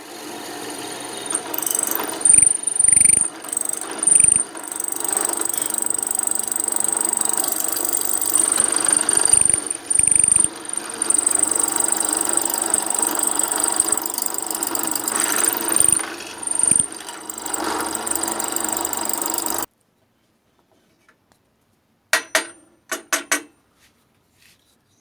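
Electric drill running with a steady high whine, its sound dipping briefly several times as the load changes, then stopping abruptly about two-thirds of the way through. A handful of sharp clicks follow near the end.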